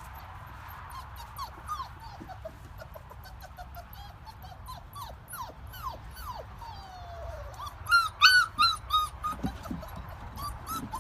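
A dog whining and whimpering in many short, high, falling cries, breaking into a run of louder, sharper yelping cries about eight seconds in.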